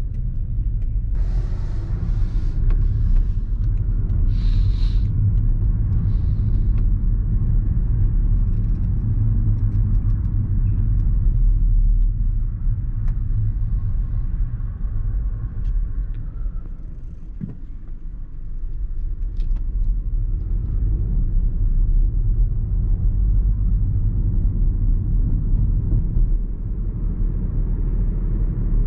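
A BMW 118i's 1.5-litre three-cylinder turbo engine and the tyres give a steady low rumble while the car drives through town. The rumble eases for a couple of seconds past the middle, then picks up again. A few brief hisses come in the first few seconds.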